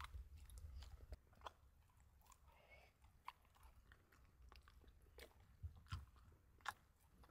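A dog chewing and crunching a treat: faint, irregular sharp crunches.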